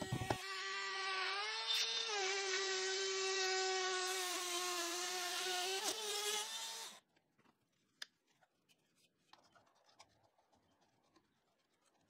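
Router running at a steady high whine as it cuts a circle out of a camphor laurel board on a pivoting circle jig. Its pitch dips briefly about two seconds in, and it cuts off abruptly about seven seconds in, leaving near silence with a couple of faint clicks.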